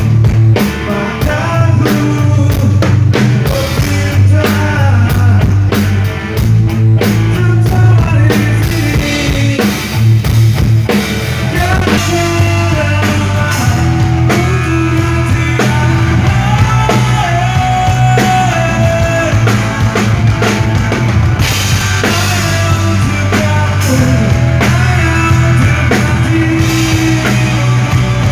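Rock band playing loudly through a PA at a sound check: the drum kit is prominent, with many hits in the first half, over a heavy bass line, and a sustained melody line comes in over it later.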